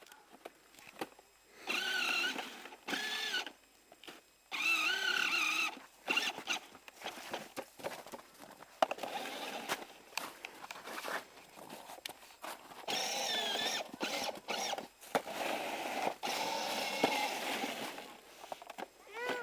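A small child's high-pitched squeals and calls without words, several of them, each held about a second with wavering pitch. Rustling and clattering noise comes between them.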